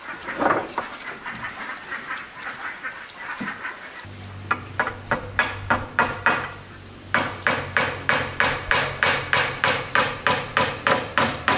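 A hammer striking wood in a steady run of blows, slower at first and then about three a second, as nails are driven. It follows a few seconds of animal calls.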